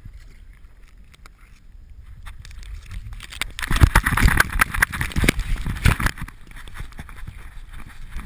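Rubbing and knocking of a GoPro strapped to a dog as the dog moves: faint rustling at first, then from about three and a half seconds in, nearly three seconds of loud knocking and scraping of fur against the camera, easing off after.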